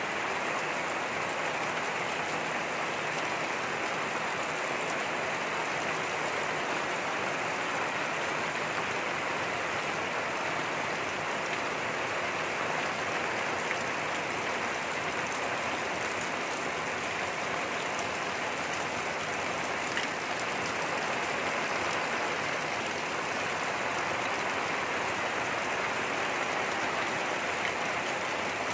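Steady rain falling on a garden of leafy plants and planter boxes: an even, unbroken hiss, with a single faint tick about twenty seconds in.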